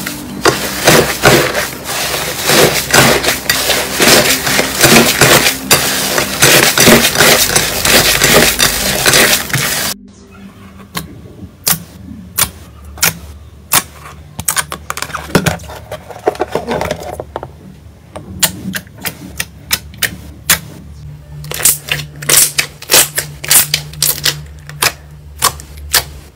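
Slime being kneaded and poked by hand: a loud, dense crackling and squishing for about the first ten seconds, then, after a sudden drop in level, a quieter run of sharp pops and clicks as fingers press into a glossy slime.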